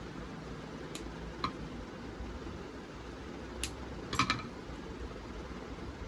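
Small metal clicks and clinks from a hand tool and Speakon connector parts being handled. There is a single click about a second in and another half a second later, then a louder cluster around four seconds in, over a steady background hiss.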